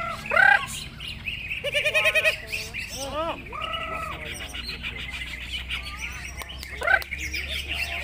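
Greater green leafbird (cucak ijo) singing a varied song of arching whistled notes, held whistles and quick trills, over a background chorus of other songbirds.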